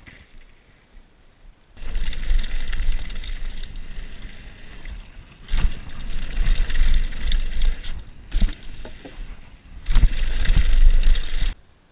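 Wind buffeting an action camera's microphone as a mountain bike rolls fast down a dirt trail, with the rush and rattle of tyres on dirt. It comes in three loud surges of rumble, each a few seconds long.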